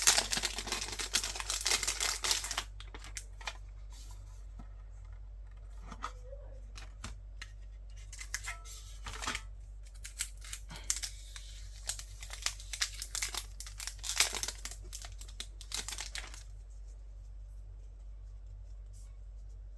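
Plastic wrapping crinkling and tearing as a sealed photocard set is opened, in two long spells with scattered small rustles and clicks of handling between them.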